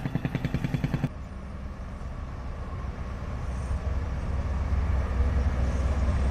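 Diesel construction machinery running: a low rhythmic engine chug for about the first second, then, after an abrupt change, a steady low rumble that grows slightly louder.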